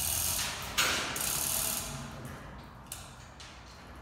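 Hand-pulled overhead chain hoist lifting an aluminum boat hull: the hand chain rattles through the hoist and the mechanism ratchets, loudest in the first two seconds, then thinning to scattered clicks.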